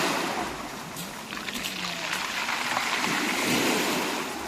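Sea surf washing onto the shore, a steady hiss of waves that swells about three seconds in.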